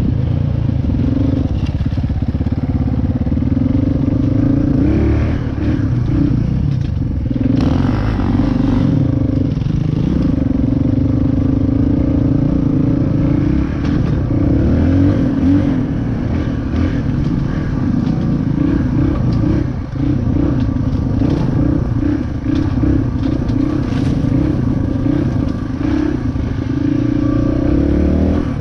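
Dirt bike engine running while being ridden, its pitch rising and falling with the throttle, with rattling and clatter from the bike. About eight seconds in there is a brief louder rush of noise.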